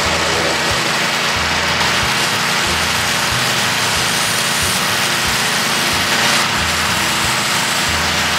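Pressure washer with a turbo nozzle spraying water hard against the inside of an aluminum boat hull: a loud steady spray hiss over the machine's running motor.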